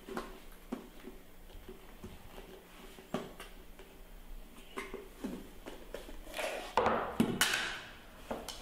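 A clear plastic bucket with a snap-on lid is handled over a wooden table. Scattered light taps and knocks come first. About two-thirds of the way in there is a louder crackling plastic clatter lasting about a second, as the lid comes off and the bucket is set down.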